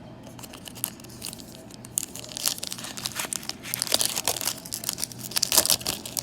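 Foil wrapper of a Pokémon TCG booster pack being crinkled and torn open: a run of crackling rustles that grows louder about two seconds in, with the sharpest crackles near the end.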